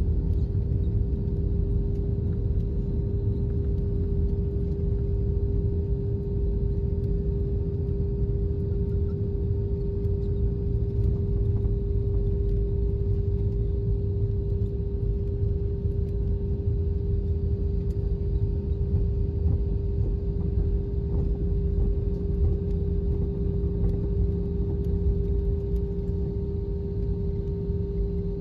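Cabin noise inside an Airbus A320 taxiing after landing: a steady low rumble of the idling engines and rolling wheels, with a constant hum tone through it. A second, lower hum joins near the end.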